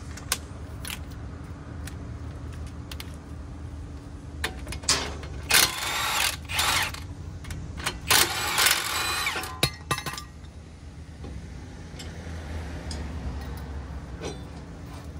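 Tool work on a front brake caliper bracket's bolts with a 19 mm socket: scattered clicks and two louder bursts of rattling metal around the middle, over a steady low hum.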